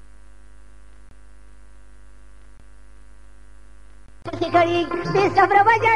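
Steady electrical mains hum in the gap between recordings. About four seconds in, Pashto singing with music starts again abruptly.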